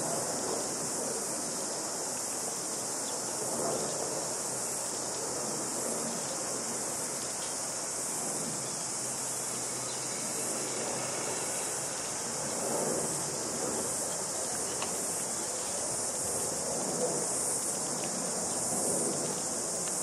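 A steady, high-pitched chorus of insects with no break, over a low, even hum of distant city noise.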